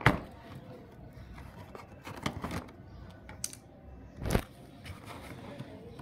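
Cardboard jigsaw puzzle box being handled and opened, and its cardboard pieces taken out and dropped onto a tile floor: light rustling with a few sharp knocks, one right at the start and another about four seconds in.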